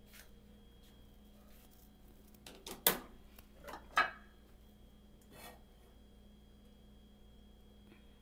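A few sharp knocks and clatters of kitchenware on a gas stove over a faint steady hum. A plastic plate is set down on the metal grate about three seconds in, which is the loudest knock, and an oil bottle is handled about a second later.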